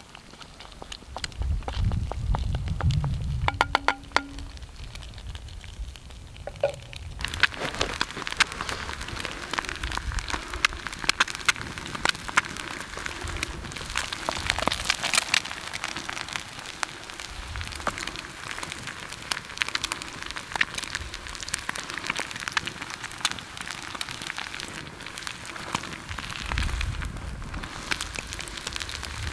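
Small fire crackling and popping, becoming dense and steady about seven seconds in after a few low knocks at the start.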